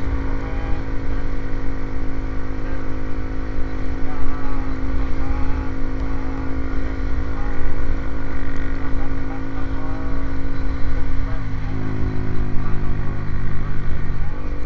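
Motorcycle engine running steadily through an aftermarket racing exhaust. About twelve seconds in its pitch drops a step and holds lower.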